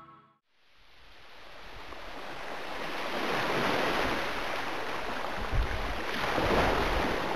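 Sea waves washing against a rocky shore, a rushing that fades in about half a second in and swells twice. Low gusts of wind knock on the microphone.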